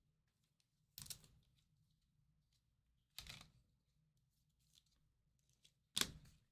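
Trading cards being slid into plastic penny sleeves: three short swishes, about two to three seconds apart.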